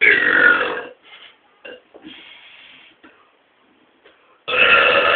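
Two loud, drawn-out human burps: the first ends about a second in, the second starts near the end and carries on. Faint scattered sounds fill the lull between them.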